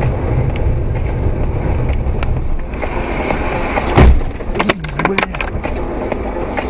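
Car on the road, steady driving noise with a loud thump about four seconds in, followed by a few sharp clicks.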